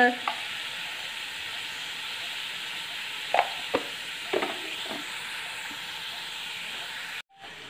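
Beef, onions and spices sizzling steadily in hot oil in an aluminium pressure cooker, with a few light taps around the middle. The sizzle cuts off suddenly near the end.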